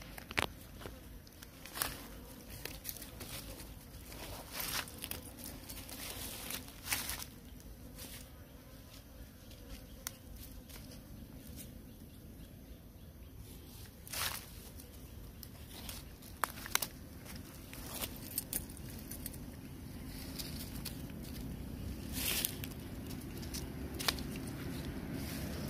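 Dry leaf litter rustling and crackling in scattered short sounds as macaques move over it, with a low rumble growing louder near the end.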